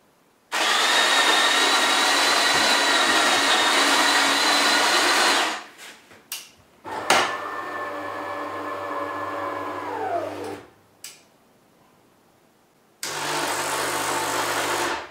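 DeLonghi Magnifica ESAM 4500 bean-to-cup coffee machine brewing a small coffee: its built-in grinder grinds beans for about five seconds, then after a click the brew unit motor runs for about three seconds, its pitch falling at the end. Near the end the water pump hums for about two seconds, running a bit oddly because the water path still holds air.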